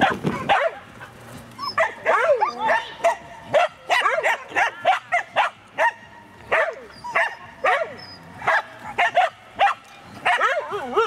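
A dog barking over and over in short yapping barks, about two a second, with a couple of brief pauses.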